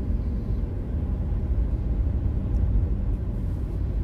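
Steady low rumble of a car driving along the road, heard from inside its cabin.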